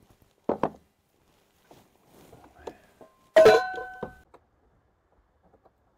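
Metal camp gear being handled: a light double knock about half a second in, some rustling, then a sharp metallic clank about three and a half seconds in that rings briefly.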